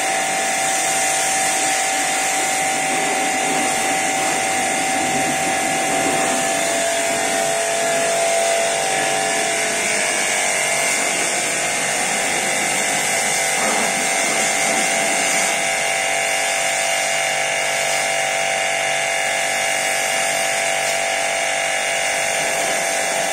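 Small electric pressure washer running, its motor giving a steady whine while the water jet hisses against the car's bodywork.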